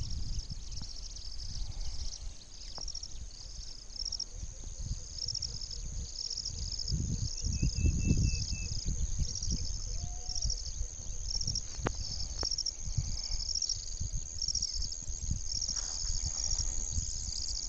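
Insects chirping in a steady rhythm, about two chirps a second, over a continuous high-pitched drone. Beneath them is a low rumble on the microphone, loudest about eight seconds in.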